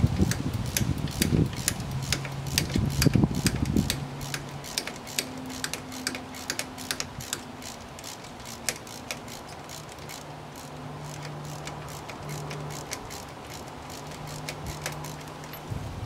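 Socket ratchet wrench on an extension clicking in quick back-and-forth strokes, about three or four clicks a second, as the hub assembly's mounting bolts are worked loose.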